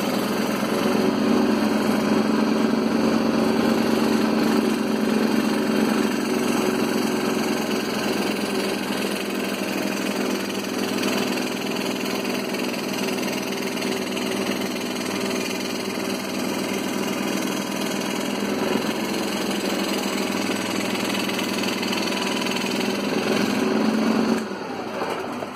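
Scroll saw running with its blade cutting through a wooden sheet: a steady buzz that stops near the end.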